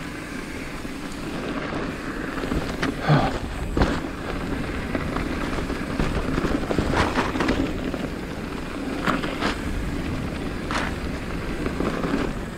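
Mountain bike rolling down dry dirt singletrack: tyre noise and wind rushing over the microphone, with a few sharp clatters as the bike hits bumps and rocks.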